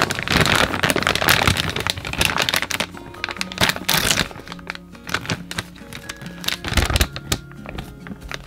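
Background music with held notes, over irregular crinkling and crackling of snack packaging being handled.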